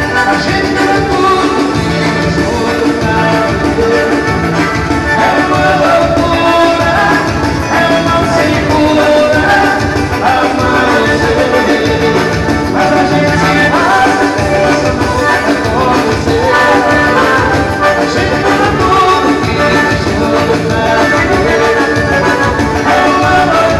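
Loud dance band music with singing over a steady beat.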